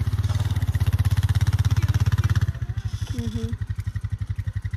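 ATV engine running with a rapid, even pulse as it drives off. It drops in loudness about two and a half seconds in as it moves away.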